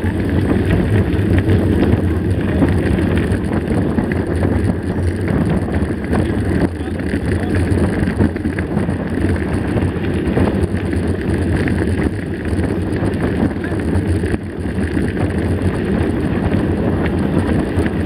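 Steady wind buffeting the microphone of a camera mounted on a moving mountain bike, over the continuous crunch and rattle of knobby tyres rolling on a gravel road.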